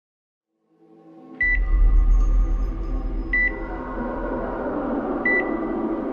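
Electronic soundtrack: a low synth drone swells in about a second in, joined by a deep bass rumble, while a short high electronic beep sounds three times, about two seconds apart.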